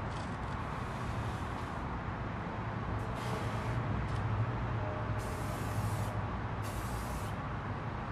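Aerosol spray-paint can spraying black paint in short hissing bursts. There are three main sprays of under a second each, starting about three seconds in, with a few brief fainter puffs, over a steady low hum.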